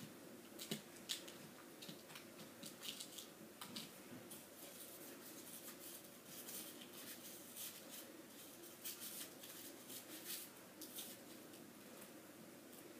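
Faint, scattered clicks and light taps of thin plastic kit trays being handled as small pieces of dough are pressed into nugget-shaped moulds, over a low steady hum.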